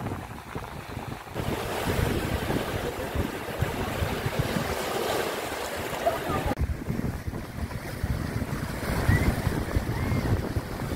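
Small waves breaking and washing over a shallow shore, with wind buffeting the microphone. The sound changes abruptly twice.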